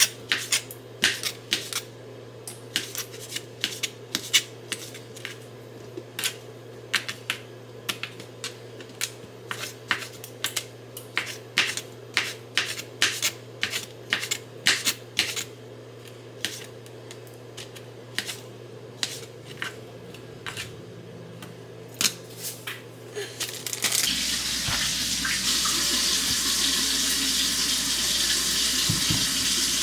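Kitchen prep: a run of sharp, irregular knocks and clicks, several a second, over a steady low hum. About 24 seconds in, a kitchen tap turns on and water runs steadily into the sink.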